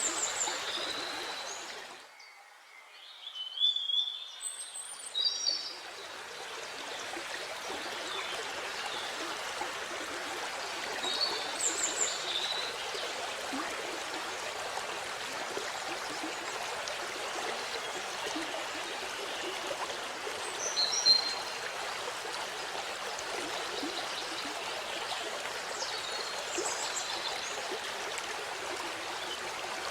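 Steady rush of a waterfall, with small birds chirping now and then above it. About two seconds in, the water sound drops away briefly, then comes back.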